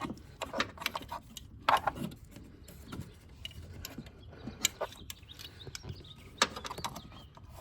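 Hands fitting a flex fuel sensor into a car's fuel line: irregular clicks, taps and rattles of the plastic quick-connect fittings being handled and pushed together, with a sharper knock a little under 2 s in and another near the end.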